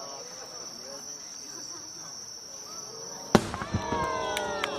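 A firework shell bursts with one sharp, loud bang a little over three seconds in, followed near the end by crackling pops. Before the burst, insects trill steadily in a high pitch under faint crowd chatter.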